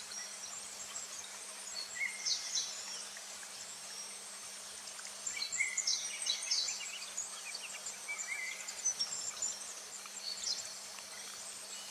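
Summer forest ambience: small birds chirping in short high bursts, a few seconds apart, over a faint steady insect buzz.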